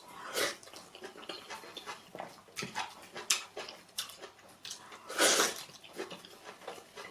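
Close-miked eating sounds of pounded yam and efo riro vegetable soup: wet chewing, lip smacks and clicks, with two louder noisy slurps near the start and about five seconds in.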